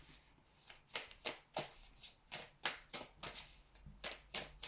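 A deck of reading cards shuffled by hand, in short even strokes about three a second, starting just under a second in.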